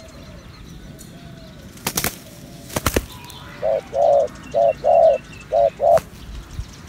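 Spotted doves cooing: a run of loud, low coos in three pairs, the second note of each pair longer, after a few faint coos at the start. A few sharp wing flaps sound in between, the last as one dove lifts its wings near the end.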